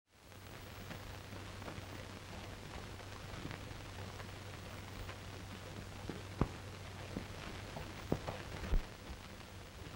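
Worn optical soundtrack of an old black-and-white film: steady hiss and a constant low hum, with scattered faint crackles. A few sharper clicks or knocks come in the second half, the loudest about six and a half seconds in and two more near the end.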